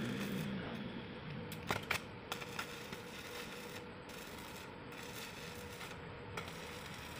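Electric arc welding on a steel gate pipe, the arc crackling steadily over a faint steady hum, with a few sharp clicks about two seconds in.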